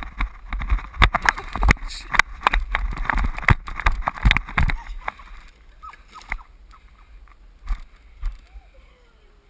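Handling noise from a wearable camera being moved: a quick run of knocks and rustling for about five seconds, then a few fainter clicks.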